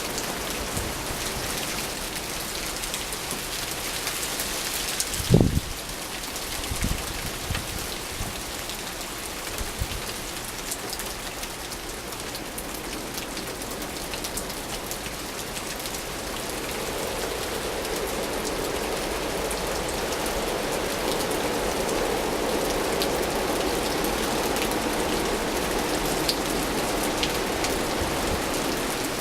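Steady rain falling in a winter storm, a continuous hiss of drops on surfaces. A single loud low thump sounds about five seconds in, and the rushing grows fuller from about halfway through.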